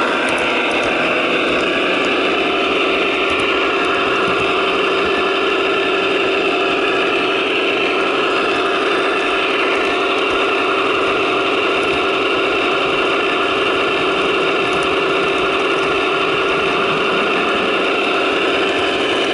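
Paragon 2 sound decoders in a pair of Broadway Limited Imports HO scale GE AC6000CW locomotives playing the sixteen-cylinder turbo diesel engine sound, running steadily through the models' small speakers with a constant hum and little deep bass.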